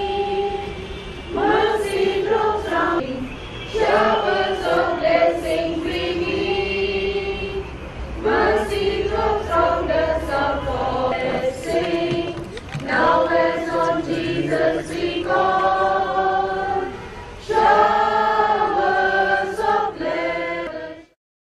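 Choir singing a hymn in phrases of several voices, cutting off suddenly near the end.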